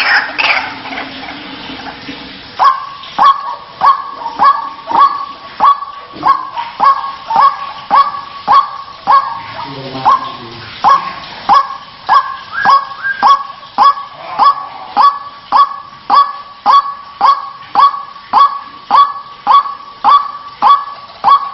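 White-breasted waterhen (ruak-ruak) calling. After a quieter first two and a half seconds, a harsh 'kruak' note repeats steadily, a little under twice a second. This is the call used as a lure to draw the birds out of cover.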